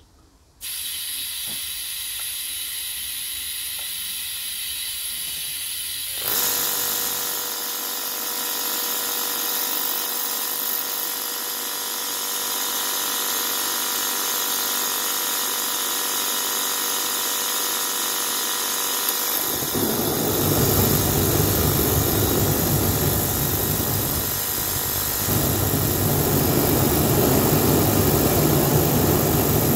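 Bairan STW120P waste-oil burner running on air from an external compressor: a steady hiss of air and machinery, growing louder with a steady whirring hum about six seconds in. About twenty seconds in the oil flame lights and burns with a deep rumble, showing the burner will fire on external air despite its faulty air pump.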